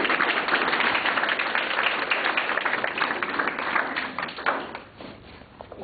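Audience applauding, thinning out and dying away about five seconds in, with a few stray claps near the end.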